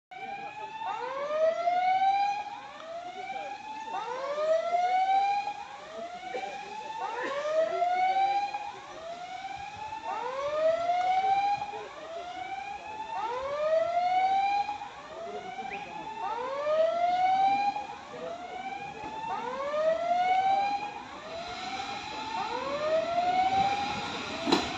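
Electronic level-crossing warning signal: a rising whooping tone repeated about every one and a half seconds. In the last few seconds the noise of an approaching passenger train grows underneath it.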